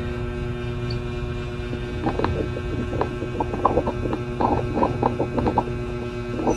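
Steady electrical hum made of several steady tones. From about two seconds in, a quick, irregular series of short, soft clicks or taps sits over it.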